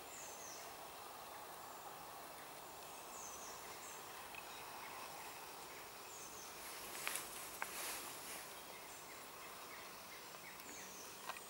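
Faint woodland ambience in which a bird gives a short, high, falling call about every three seconds. A few light clicks and rustles of handling come about two-thirds of the way through.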